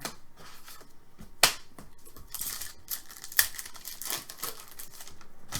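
Hockey card packs and cards being handled: crinkling wrapper foil, cards sliding and a tearing rustle, with a sharp click about a second and a half in and another a little past the middle.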